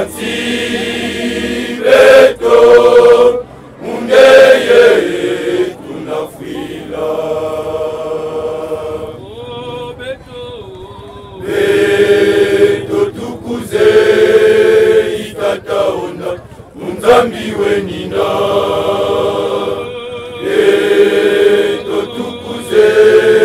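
A choir singing together in phrases of a few seconds, with short breaks between them.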